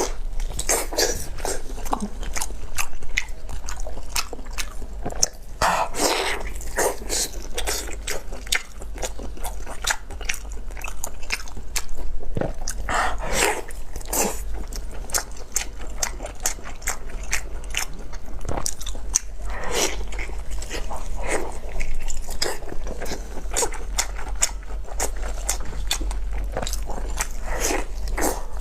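A person eating close to the microphone: chewing, biting and slurping red-chili-oil pig lung, with a dense run of short wet smacks and clicks.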